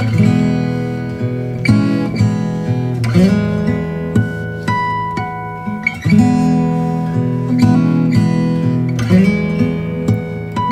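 Background music: an acoustic guitar strumming chords, each strum left to ring, with a new chord every couple of seconds.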